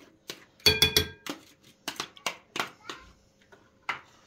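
A spoon scraping paste out of a plastic jug and clinking against a glass bowl of water. There is a loud ringing clink about a second in, then a run of sharp taps and scrapes.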